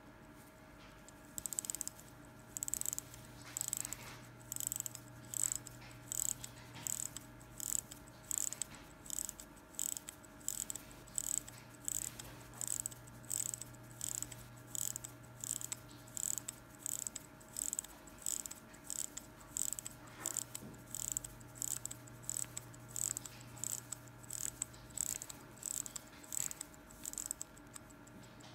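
Davis skeleton mechanical watch being hand-wound at the crown: about forty short bursts of ratcheting clicks from the winding mechanism, roughly one and a half a second, one burst per turn of the crown. A faint steady hum lies underneath.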